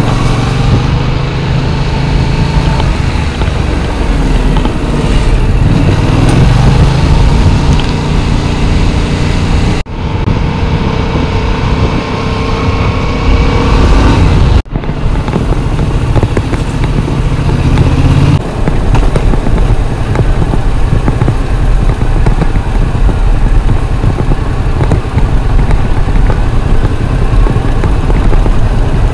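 Yamaha MT-07's 689 cc parallel-twin engine running under way, its note rising and falling with the throttle, over a steady rush of wind noise. The sound drops out abruptly twice for an instant near the middle.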